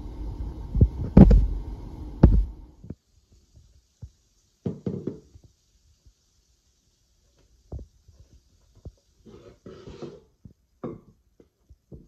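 A steady low rumble with a few sharp knocks from the covered frying pan on the stove. After about three seconds it goes quiet except for sparse scrapes and taps: a wooden spatula working in a nonstick frying pan, lifting out cooked chicken bites.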